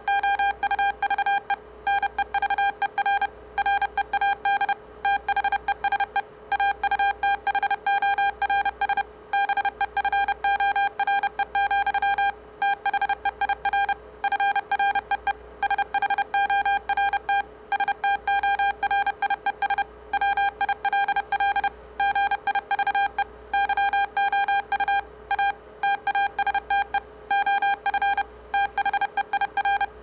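Morse code sent at 30 words per minute as a sawtooth-wave audio tone played through a speaker: a fast, unbroken string of dots and dashes at one steady pitch, with only short gaps between words.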